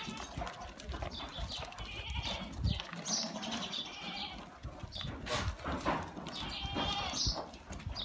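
Shirohi goats bleating as the herd moves about: a few wavering calls spread a few seconds apart, over scattered clicks and knocks.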